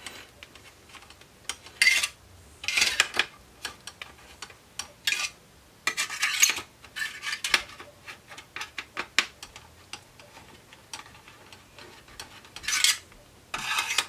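Screwdriver turning the sprung captive screws of a 2010 Mac Pro's CPU heatsink, loosening them a little at a time: irregular short bursts of metallic scraping and clicking.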